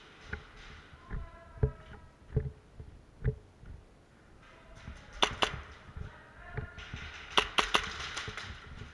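Scattered sharp cracks and knocks of airsoft guns firing during a close-quarters game, some single and some in quick strings of two or three.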